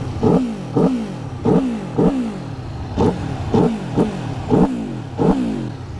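2021 Aprilia Tuono V4 1100's 65-degree V4 engine revved at a standstill in quick throttle blips, about nine of them, each a sharp rise in pitch that drops straight back to idle.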